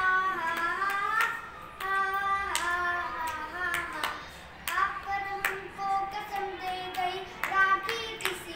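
A boy singing a Hindi patriotic song unaccompanied, in sustained phrases with gliding held notes.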